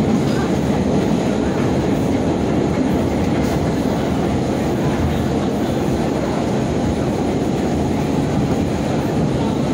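A vintage BMT AB Standard subway car running along the track, heard from inside the car with its windows open: a steady rumble of wheels on the rails and the car's running gear.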